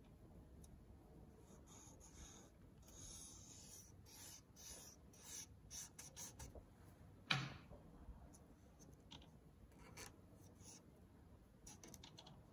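Faint scratching and rubbing of a fingertip on a window screen's mesh in short strokes, with one louder tap a little past the middle.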